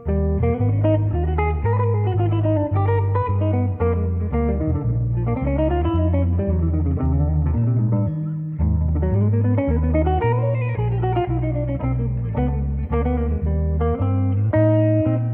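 Background music of plucked guitar over a bass line, with runs of notes rising and falling.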